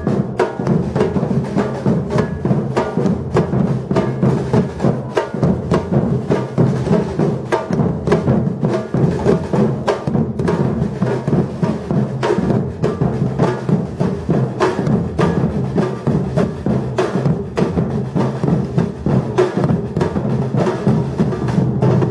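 Batucada drum ensemble playing a steady, dense rhythm with a heavy low drum part.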